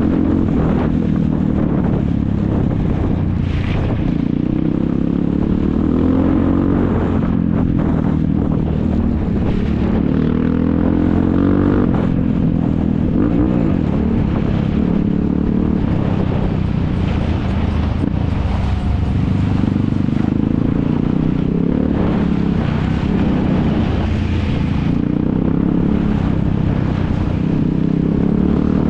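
ATV (quad bike) engines running hard, their pitch rising and falling over and over as they rev and ease off.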